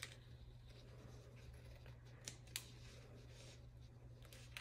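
Scissors snipping faintly, trimming overlapping vinyl off a strip of toilet paper, with a couple of sharper snips a little over two seconds in.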